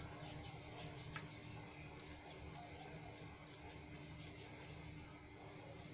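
Faint rubbing of hands rolling small balls of stiff puri dough between the palms, over a steady low hum.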